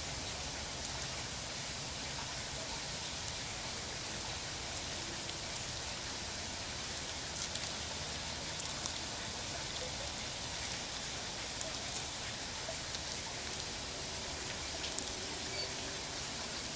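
Gray squirrel cracking sunflower seed shells with its teeth: scattered sharp, crisp clicks, some in quick clusters, over a steady background hiss.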